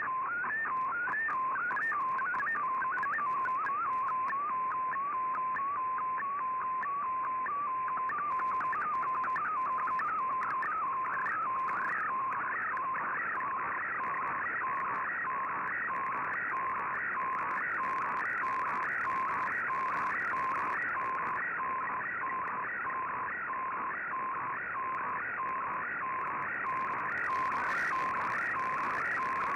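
A picture being sent in the digital MFSK data mode of the Shortwave Radiogram shortwave broadcast, as received on an Icom IC-R8600. It is a continuous tone that warbles rapidly up and down in a repeating pattern over a steady hiss of shortwave noise.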